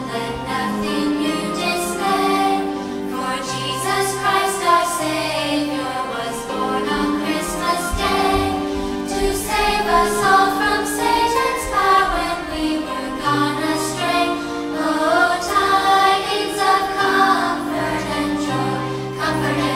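Children's choir singing a song with instrumental accompaniment: held sung notes over a steady bass line.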